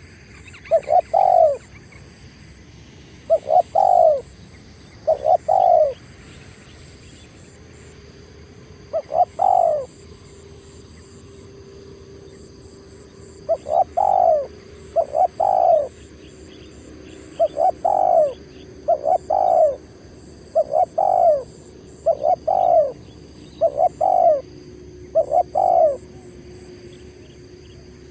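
Spotted dove cooing: a short, low coo phrase repeated about a dozen times, with uneven gaps of one to four seconds between calls.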